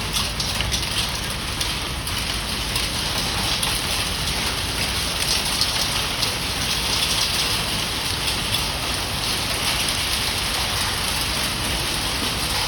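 Heavy rain with hail, a dense, steady patter of drops and hailstones striking surfaces.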